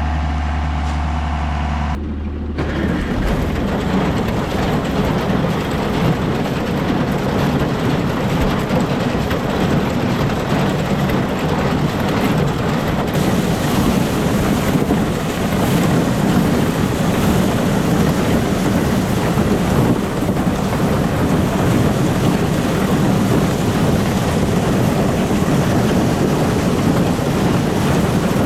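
An engine idling steadily, then, after an abrupt cut about two seconds in, the loud, steady rumble and rattle of a farm tractor working a corn picker in the field.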